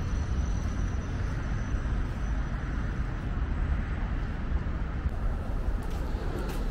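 Steady road traffic noise, with a deep uneven rumble underneath.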